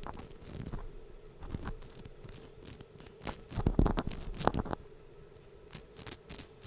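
A drivetrain part from a WLToys 144001 RC car turned by hand close to the microphone, giving irregular rough scratching and crunching, loudest a little past halfway. It is not running smoothly: the cause of the car's grinding noise when driven forward.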